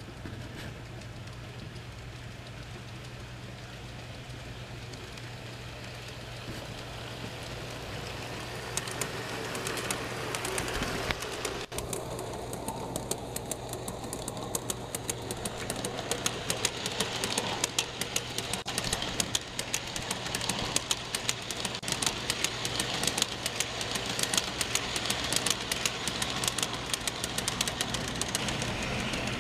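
G-scale model freight train rolling past, its wheels clicking over the rail joints over a steady low hum. The clicking starts about nine seconds in and grows denser as the cars pass close by.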